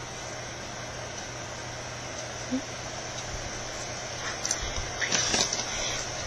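Steady background hiss with a faint low hum, and a few soft clicks and rustles of handling in the last two seconds.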